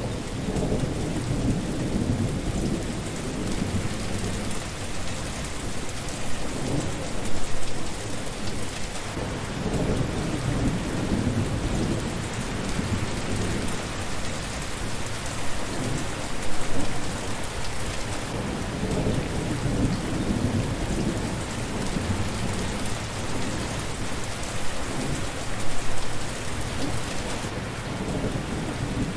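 Steady rain falling, with low rumbling swells that rise and fade throughout and three louder surges.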